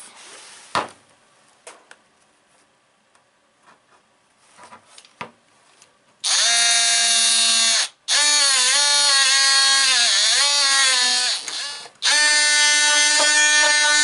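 Cordless power sander switched on about six seconds in after some faint handling clicks. It runs in three stretches with two brief stops, its whine dipping in pitch each time it is pressed against the hard 90-degree edge of a steel belt buckle to round it off.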